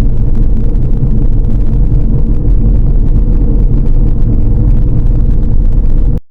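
A vehicle running, heard as a loud, steady rumble of engine and road noise that cuts off abruptly just before the end.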